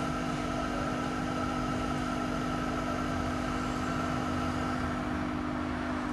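ORION kerosene jet heater running with its lamp showing normal operation: a steady hum of fan and burner, with a constant low tone under a fainter higher tone.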